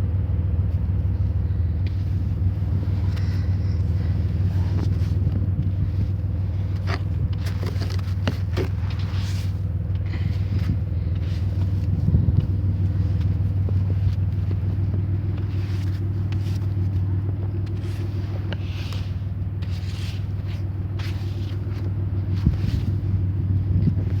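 A car engine running at idle, a steady low hum throughout. Short, irregular scraping and brushing noises come over it, consistent with snow being cleared off the car.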